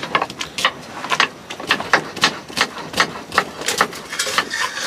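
Knife slicing onion against a wooden cutting board: a steady run of sharp knocks, about three or four a second.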